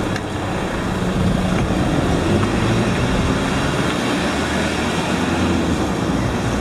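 Steady rumble of a moving vehicle, with a low engine hum that drifts in pitch under constant road noise.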